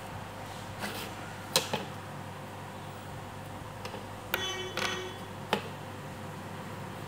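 Scattered sharp plastic clicks and taps from a printer ribbon cartridge being handled while a new ribbon is threaded through it, the loudest about a second and a half in, with two short rattling clicks a little past the middle.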